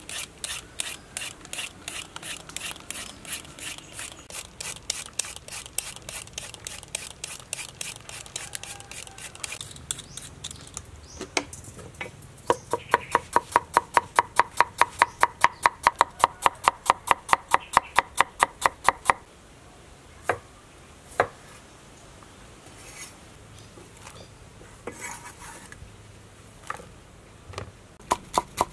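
Carrot being shredded on a hand grater, with quick, even rasping strokes for the first several seconds. Then a cleaver chops on a wooden cutting board, a steady run of loud knocks about four a second with a slight ring, thinning to occasional single cuts and picking up again near the end.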